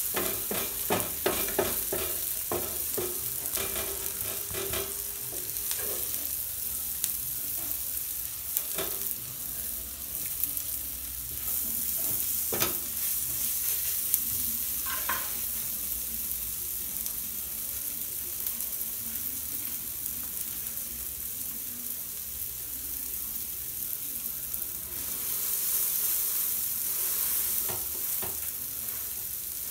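Butter sizzling in a flat pan with frying onions, tomatoes and kulcha bread, a steady hiss. A cooking utensil clacks against the pan many times in the first five seconds, then a few single knocks later.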